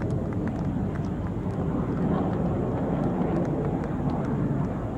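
Red Arrows' BAE Hawk jets flying over the airfield: a steady, broad jet rumble with a few faint clicks above it.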